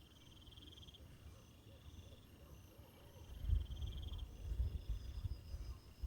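Insects trilling in pulsed bursts of about a second, repeating every couple of seconds, in a chorus typical of crickets. From about halfway a low irregular rumble joins in and is the loudest sound.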